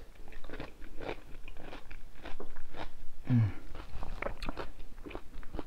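Close-miked crunching and chewing of a sauce-coated mini cucumber, a run of crisp, wet bites and chews, with a brief low hum from the eater about three seconds in.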